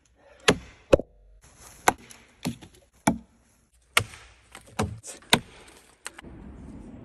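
An axe chopping into a log, with about eight sharp wooden strikes spaced roughly half a second to a second apart.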